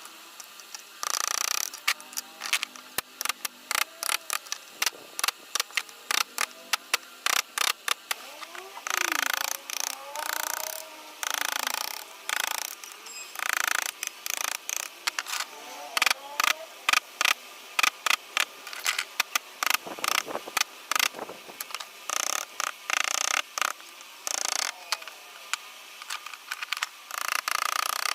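Hand carving of wood with a chisel: rapid, irregular sharp taps on the chisel, with short scraping cuts in between.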